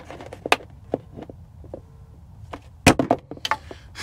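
Collapsible fold-flat bowl being snapped open by hand: a run of sharp plastic clicks and snaps as its panels are pushed into shape. The loudest snaps come about three seconds in.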